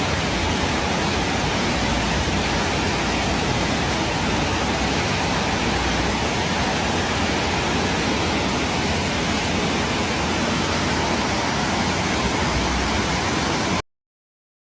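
Rushing floodwater: a steady, loud roar of torrential water that cuts off abruptly near the end.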